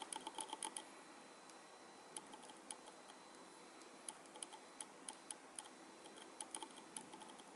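Faint, irregular small clicks from an NH35 automatic watch movement as its crown is turned to run the newly fitted hour and minute hands round. A quick run of clicks comes in the first second, then scattered single clicks.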